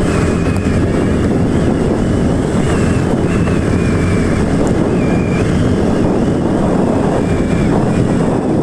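Wind rushing over the microphone and a motorcycle engine running steadily while riding at road speed.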